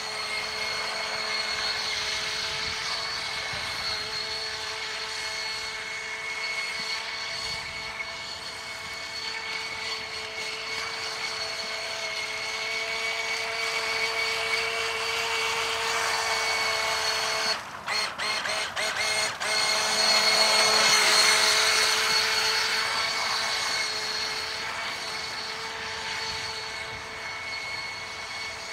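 Electric motor of a toy-grade RC speedboat on LiPo power, running at speed with a steady high whine over a hiss. About two thirds of the way through the whine cuts out in a few quick stutters, then comes back louder for a few seconds.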